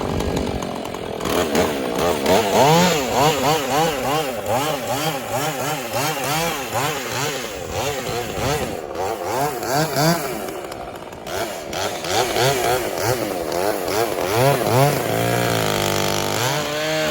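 Two-stroke chainsaw cutting dead pecan wood. The engine note swings up and down about twice a second as the saw bogs and recovers in the cut. Near the end it steadies briefly before swinging again.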